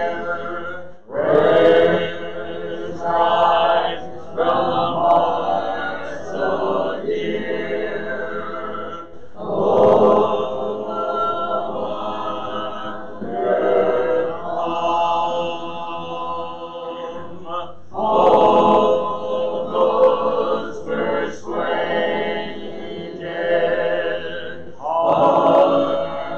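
A hymn sung without instruments: a man's voice at the pulpit microphone leading congregational singing in long held phrases, with short breaks between lines.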